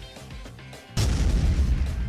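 Guitar music plays; about a second in, a sudden loud, deep gunshot-like boom cuts in and rumbles on over it: the report of a powder-charged launcher firing an aluminum airsoft BB.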